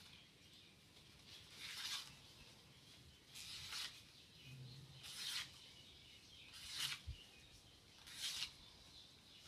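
Safety pin drawn down fresh ti leaves to shred them into strips: a faint scratchy tearing stroke about every second and a half, five in all.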